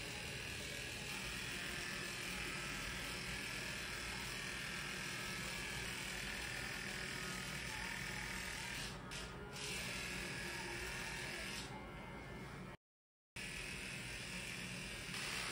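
Small handheld electric pet trimmer buzzing steadily as it shaves a dog's coat, with two brief dips about nine seconds in and a sudden half-second dropout near the end.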